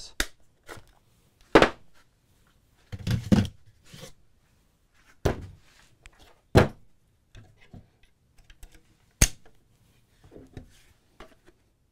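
A DeWalt cordless jigsaw and its battery pack being handled on a wooden work table: a string of separate, irregular knocks and thunks as the tools are set down and swapped, with a sharp click about nine seconds in.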